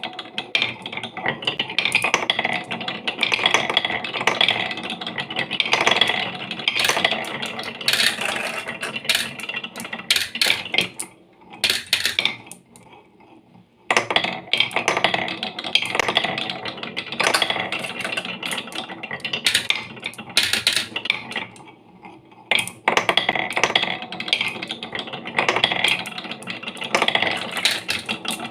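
Many marbles rolling and clattering down a wooden HABA slope marble run, a dense stream of clicks and rattles that breaks off briefly about halfway through.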